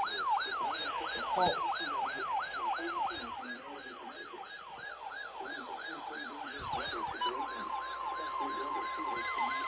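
An electronic yelp siren, its pitch rapidly rising and falling about three times a second. About seven seconds in, a steady high tone joins it: the weather radio's alert tone.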